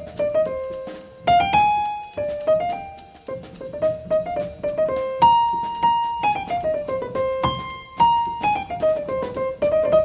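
Piano music: a melody of struck notes that ring and fade, with one longer held high note about midway.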